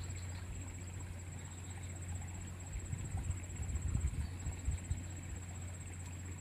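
Outdoor ambience: uneven low rumble of wind on the microphone, with a steady, thin high-pitched trill above it.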